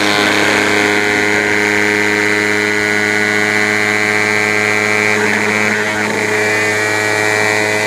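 Electric motor of a Heater BaseHit pitching machine running steadily, spinning its throwing wheel: an even hum with a higher whine over it.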